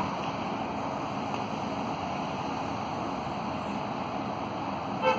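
Electric tram pulling slowly away from the stop close by, a steady rushing noise. Just before the end a brief pitched tone sounds, the loudest moment.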